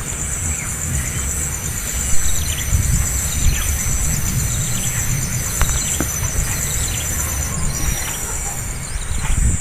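A steady, finely pulsing high-pitched insect drone over a low wind rumble, with faint scattered chirps and a few sharp clicks.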